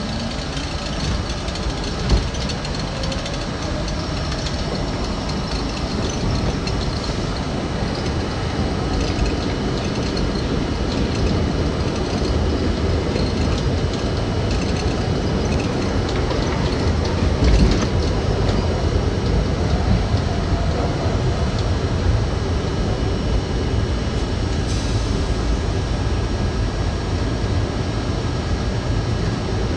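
New York City subway C train running through a tunnel, heard from inside the front car. A rising whine over the first few seconds as it pulls out of the station gives way to a steady rumble of wheels on rail, with a sharp clack about two seconds in and again after about seventeen seconds.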